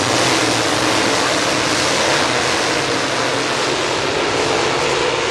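A full field of dirt late model race cars' V8 engines racing past together, blending into one loud, steady, dense wall of engine noise.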